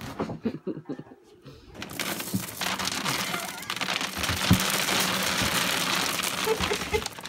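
A dog rooting through a plastic kitchen trash can, crinkling the bag and rubbish inside: a dense crackling rustle that starts about two seconds in and keeps on. Before that come a few short rustles and thumps.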